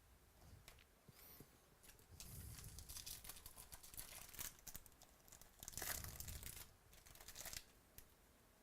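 Faint crinkling, rustling and tearing of trading-card pack wrappers and cards being handled, in short spells with small clicks between them.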